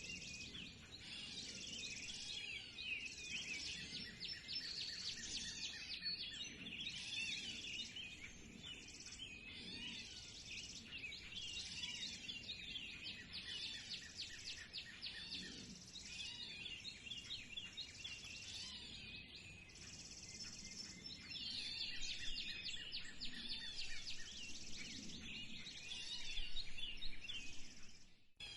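Many songbirds singing together in a spring chorus: a dense, overlapping stream of chirps and trills that cuts off abruptly just before the end.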